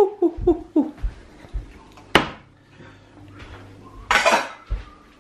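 Kitchen clatter of pots and utensils: a single sharp clink about two seconds in and a short rattling clatter around four seconds, with a woman's quick "woo, woo" at the heat of a just-boiled artichoke at the very start.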